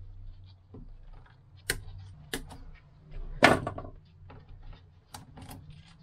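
Scattered clicks, knocks and rustles of gloved hands working with a hand tool and a coiled coax antenna cable. The loudest knock comes about three and a half seconds in, and a steady low hum runs underneath.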